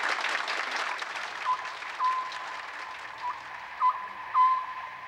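Audience applauding, the clapping thinning out and fading over the first few seconds. From about a second and a half in comes a string of short whistle-like notes at one steady pitch, each with a quick upward flick at its start; the loudest of them stand out above the fading applause.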